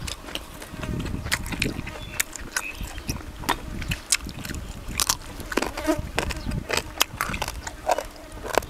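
An insect buzzing, over many irregular sharp clicks and taps.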